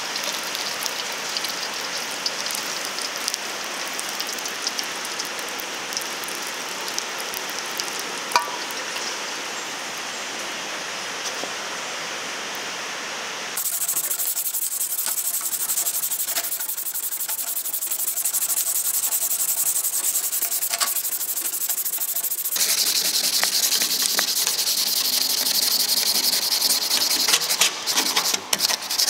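Steel cleaver blade sizzling in quench oil, a steady crackling hiss for roughly the first half. It then cuts abruptly to sandpaper rubbing by hand over the hardened blade, a scratchy back-and-forth rasp that grows harsher for the last few seconds.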